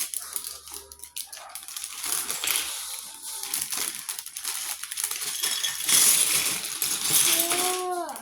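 Small plastic Lego pieces clattering and rattling as they are sifted and handled, a dense run of clicks that grows louder near the end. A short pitched sound near the end.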